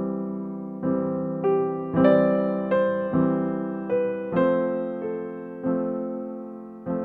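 Slow, gentle solo piano music: single notes and chords struck about once or twice a second, each left to fade.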